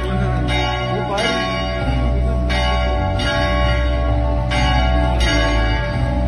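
Church bells ringing: strikes in pairs about every two seconds, three pairs in all, each ringing on with sustained overtones, over a steady low hum.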